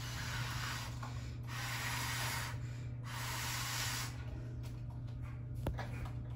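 A person blowing through a drinking straw to inflate a balloon on a toy car: three airy blows of about a second each with short pauses to breathe in between. A light click near the end.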